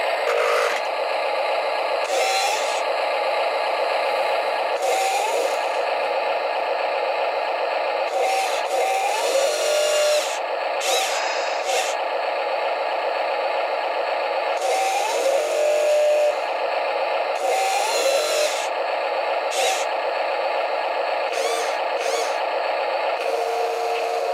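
Small electric motors and gearboxes of a Huina RC wheel loader whirring in repeated short, irregular runs as it drives and works its bucket, over a continuous background noise.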